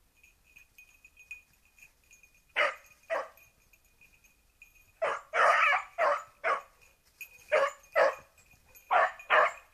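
Young beagle x petit basset griffon vendéen hound giving tongue on a rabbit: about nine barks in irregular bursts, starting a couple of seconds in and coming thicker in the second half.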